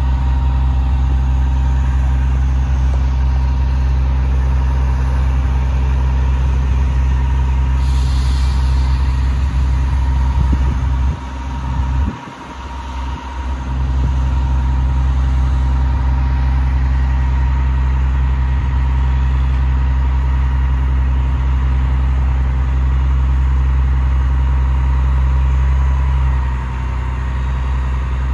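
Cummins ISM turbo-diesel engine of a crane truck running steadily at a low, even speed, with a steady whine over the drone. A short hiss comes about eight seconds in, and the drone dips and thins briefly a few seconds later.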